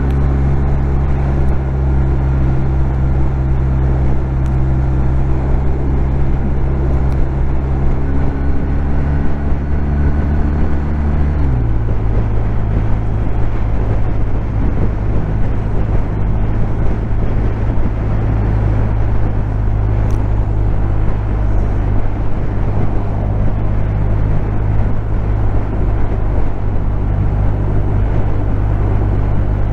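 BMW R1250R's 1254 cc boxer twin running steadily at cruising revs, heard from inside the rider's helmet with wind and road noise. About a third of the way in the engine note drops sharply to a lower pitch, as in an upshift, and then holds steady.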